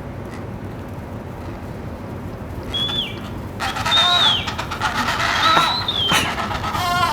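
A person whistles short high notes that glide downward, starting about three seconds in, and penguins answer with harsh braying calls. The calls grow louder and overlap the whistles, with a pulsing, throaty call near the end.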